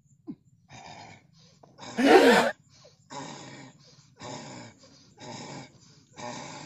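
A martial artist's forceful breathing while holding a stance: six short, sharp breaths of about half a second each, roughly one a second. The one about two seconds in is louder and voiced, like a grunt.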